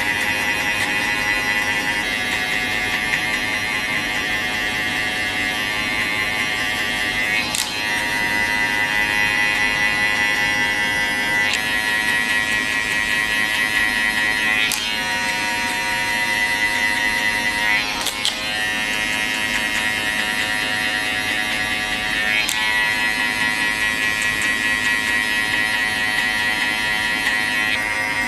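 Cordless electric hair clippers running with a steady high buzz as they cut a fade into the hair at the nape. A few sharp clicks come through, where the buzz shifts a little.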